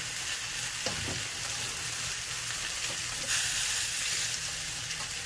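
Bone-in ribeye steak and green onions sizzling in rendered beef fat on a hot grill pan. The sizzle grows louder for about a second, a little past three seconds in.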